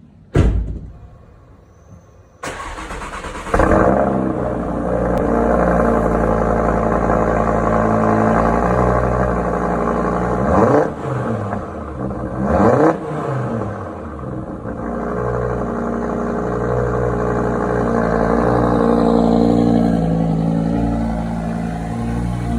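2015 Audi RS3's 2.5-litre turbocharged five-cylinder engine, with no particulate filter, starting up about three seconds in after a brief thump, then idling. It is revved twice in quick succession around the middle, each rev rising and falling, and then settles back to a steady idle.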